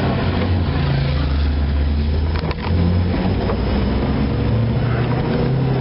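Vehicle engine running under way, heard from inside the cab, its note shifting in steps, over the hiss of tyres on a rain-soaked road. A single click about two and a half seconds in.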